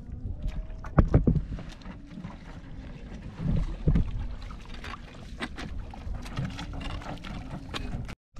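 Water sloshing and splashing as someone moves through shallow reef water, with scattered sharp clicks and knocks, the loudest about a second in and again near four seconds.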